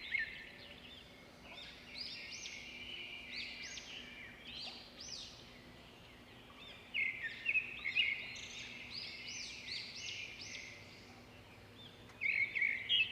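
Small birds chirping, in clusters of short arched calls and quick trills, with a faint steady low hum underneath.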